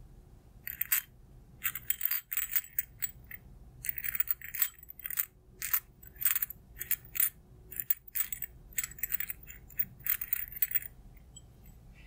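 Fingernails tapping and scratching on a small glazed ceramic bowl: a quick, irregular run of bright clicks and ticks, some with a short ring. The run starts about a second in and stops about a second before the end.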